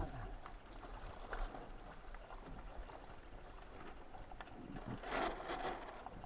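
Water splashing and washing against the hull and deck of an RS600FF sailing dinghy as it gathers way, with scattered light knocks from fittings and rigging. A louder splash comes about five seconds in.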